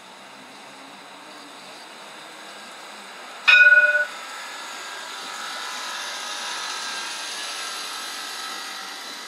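CAF Urbos 3 tram sounding one short warning chime about three and a half seconds in, then running past close by on the curve, a hiss of wheels on rail that swells and fades as it passes.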